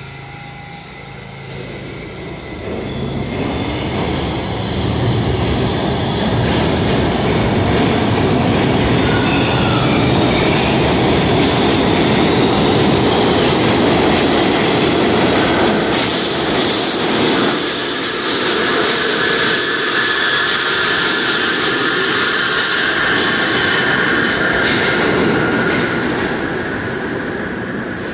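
R68 subway train rolling out of the station on the far track: a steady rumble of steel wheels on rail that builds over the first few seconds and eases near the end. Brief high wheel squeals about two-thirds of the way through.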